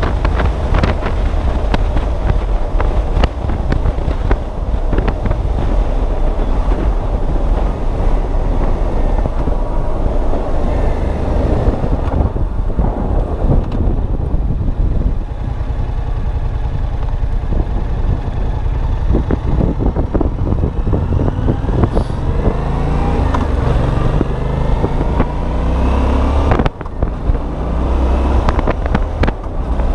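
Riding on a Yamaha FZ-07: its parallel-twin engine note under heavy wind buffeting on the microphone. In the second half the engine pitch climbs in several rising sweeps, with a brief break in the sound near the end.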